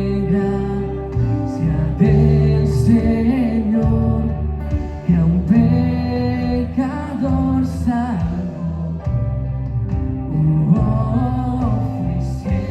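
Worship band playing a Christian song on piano, electric and acoustic guitar, bass and drums, with a singer's voice and occasional cymbal crashes.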